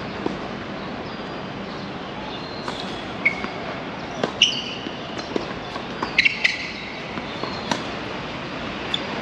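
Tennis ball being struck and bouncing on the court: a series of sharp pops about a second apart, with short high squeaks among them, over steady outdoor background noise.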